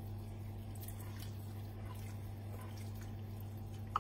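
Milk being poured gradually into a stainless saucepan of roux and vegetables to start a white sauce, a faint liquid sound over a steady low hum. A single sharp click just before the end.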